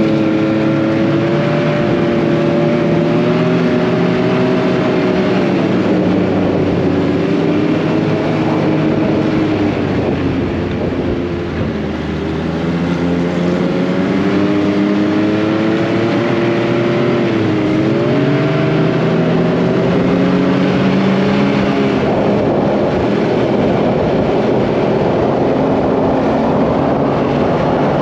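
Snowmobile engine running at trail speed, its pitch rising and falling with the throttle. It eases off briefly about halfway through, then picks up again. Over the last few seconds the engine note blurs into a steady rush.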